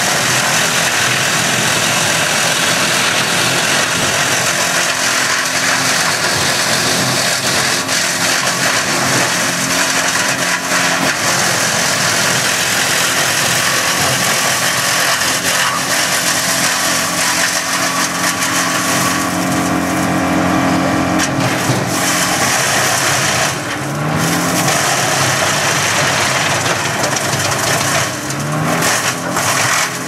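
Tractor-mounted Farmi 6-inch woodchipper with a single hydraulic infeed roller chipping macadamia branches, a loud, dense chipping noise over the steady note of the tractor engine driving it. The chipping noise eases briefly about two-thirds of the way through, and the running note rises twice in the later part.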